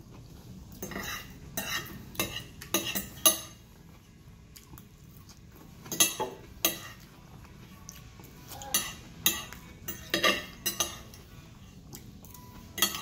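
Metal knife and fork clinking and scraping against a plate while food is cut and scooped up, in irregular clusters of sharp clinks.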